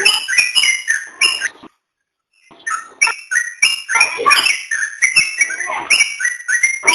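Trucukan (yellow-vented bulbul) song: a rapid run of short, bright chirping notes. The song stops dead about 1.7 s in, is silent for under a second, then picks up again.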